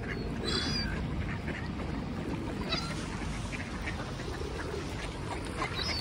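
A flock of waterbirds calling, mallard ducks quacking, with a few short high calls three times, over steady background noise.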